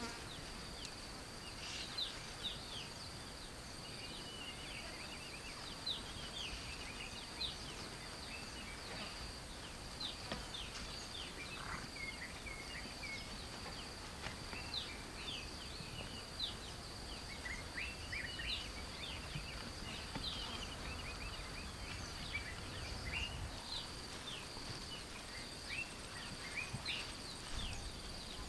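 Savanna daytime ambience: a steady, high-pitched insect buzz at one pitch, with many short, quick bird chirps scattered throughout and a low rumble underneath.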